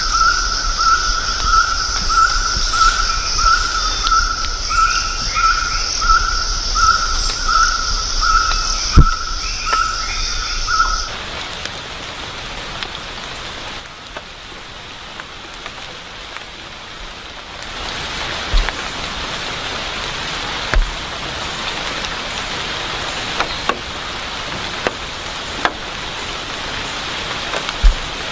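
Tropical forest ambience. For the first eleven seconds insects shrill steadily over a note repeated about one and a half times a second. Then this gives way to a steady hiss with a few sharp clicks.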